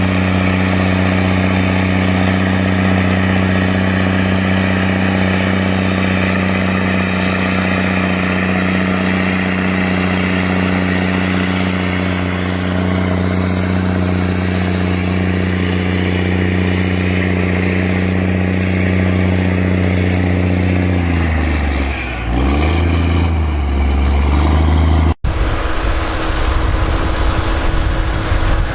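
Engine of a large machine running steadily with a deep, even tone; about 21 seconds in its pitch drops and wavers as the load or speed changes. About 25 seconds in, a sudden cut brings in a different, rougher engine noise.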